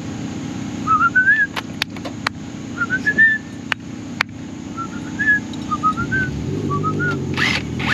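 Short whistled phrases, each a few notes stepping upward in pitch, repeated about five times over a steady low hum, with a few sharp clicks in the first half.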